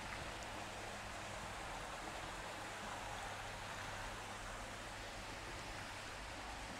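Steady rush of water splashing into a koi pond from its return outlet, with feeding koi churning the surface. A faint low hum runs underneath.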